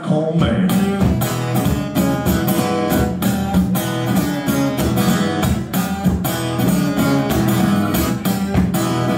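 Acoustic guitar strummed in a steady rhythm, about three strums a second, playing an instrumental passage of a folk song.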